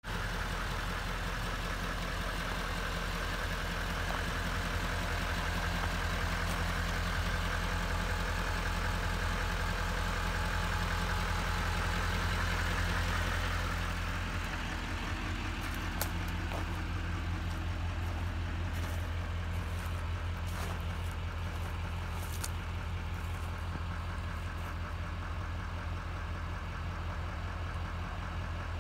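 2015 Chevy Silverado pickup's engine idling, a steady low hum. A hiss over it fades about halfway through, and a few light clicks follow.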